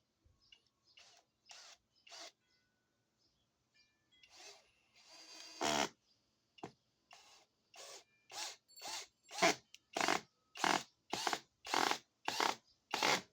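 Flex FX1231 compact drill driver driving a 6-inch TimberLok screw. The trigger is pulsed in a few short bursts, then held for a longer run about five seconds in. After that it comes in about a dozen even bursts, roughly two a second, growing louder toward the end.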